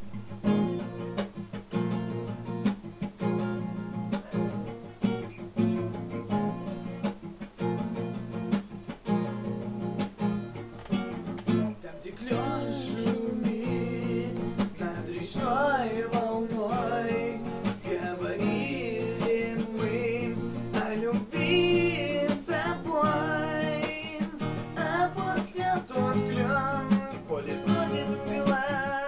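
Instrumental introduction of a pop song: a strummed guitar rhythm with a steady beat, joined about twelve seconds in by a wavering lead melody.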